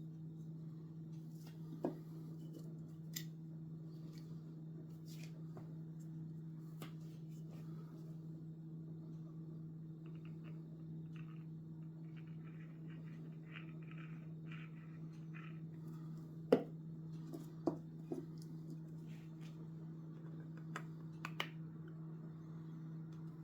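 Sharp clicks and knocks of 3D-printed plastic model parts being handled and fitted, the loudest about two-thirds of the way in, with a quick run of short rasping strokes about halfway through, over a steady low hum.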